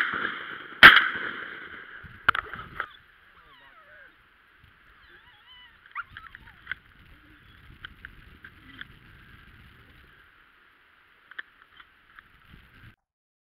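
Shotgun blasts at ducks flying overhead: a loud shot about a second in, right after one just before, then a fainter shot about two seconds in, each with a short echoing tail.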